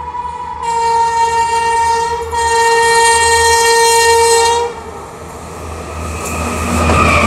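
WAP-5 electric locomotive's horn sounding two long blasts, nearly joined, starting about half a second in and stopping just before the five-second mark. Then the approaching train's rumble and wheel noise grows louder, loud near the end.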